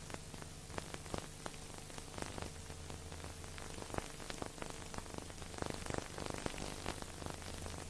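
Steady hiss peppered with dense crackling clicks over a low, constant hum: background static, with no music or speech.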